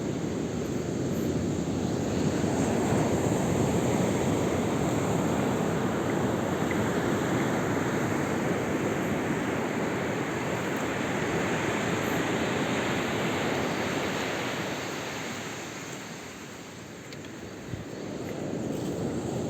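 Ocean surf washing in, a continuous rush that slowly swells and fades, easing off about three-quarters of the way through before building again.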